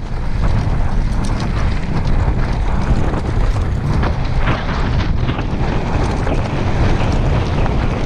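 Bicycle riding over a rough dirt and gravel track: tyres crunching and the bike rattling in many small clicks over a steady rumble of wind buffeting the microphone.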